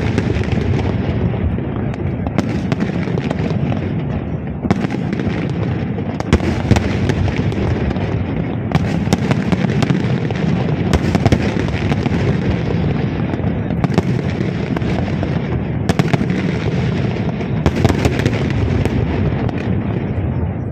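Aerial fireworks shells bursting in a continuous barrage, many sharp bangs a second or so apart over a steady rumble of booms.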